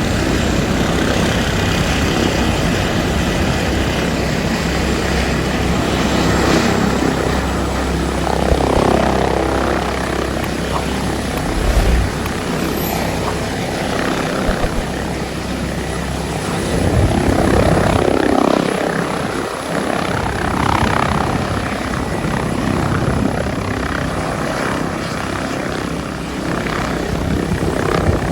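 Helicopter running loud, its rotor beating steadily under a broad turbine and rotor-wash noise that swells a couple of times.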